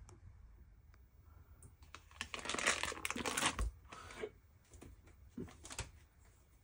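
Foil wrapper of a block of cream cheese crinkling as it is peeled away over a bowl, for about a second and a half, ending in a soft thump. A few light clicks follow.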